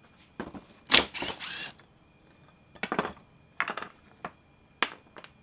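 Handling noise from a cast-aluminum tailstock and a wooden router-table sled on a workbench: a series of sharp clicks, knocks and a brief rattle as the casting is unclamped and lifted off the sled, the loudest knock about a second in.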